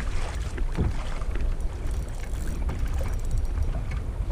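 Wind rumbling on the microphone, with water lapping and splashing against a kayak hull.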